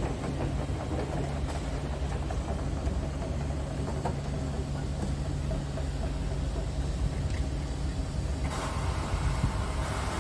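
Scania R truck's diesel engine idling steadily, a low even rumble. A higher hiss joins about eight and a half seconds in.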